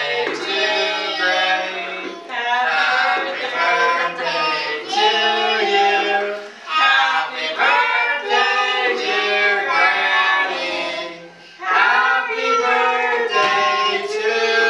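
A small group of adults and children singing a song together, with a brief break about eleven seconds in.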